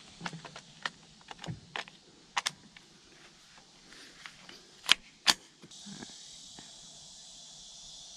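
Handling noise from a scoped Ruger 10/22 rifle on a bipod: a string of light clicks and knocks, with two sharp clicks half a second apart about five seconds in. A steady high hiss comes up just before six seconds in.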